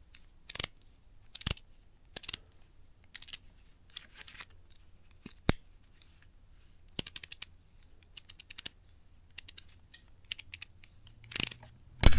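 Metal hand tools being handled: single sharp clicks and clinks, then short runs of rapid ratchet clicking from a ratcheting box wrench, with a louder metal knock near the end.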